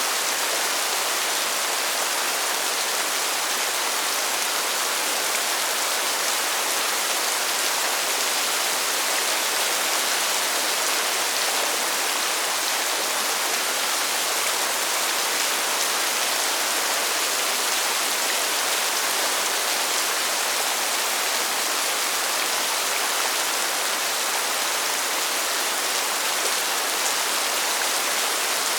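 Steady rain falling, an even hiss with no single drops or thunder standing out.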